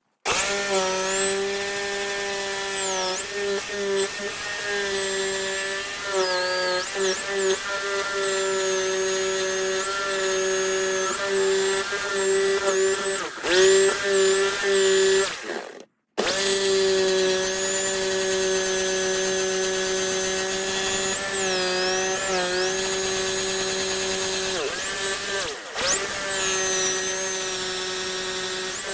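Bosch GST 680 jigsaw running and cutting through a 50 mm plank: a steady motor whine whose pitch dips briefly several times. It stops for a moment about halfway through, then starts up again.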